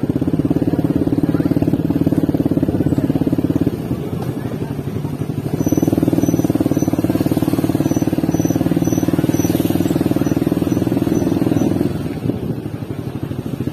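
Motorcycle engine running close to the microphone, its pull rising and easing: it drops back about four seconds in, picks up again, and eases off near the end. A faint quick series of short high beeps sounds in the middle.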